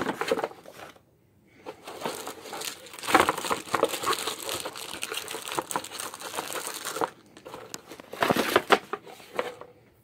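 Plastic wrapping on sealed packs of trading cards crinkling, with cardboard rustling, as the packs are handled and pulled from their box. The crinkling stops briefly about a second in and again near the end.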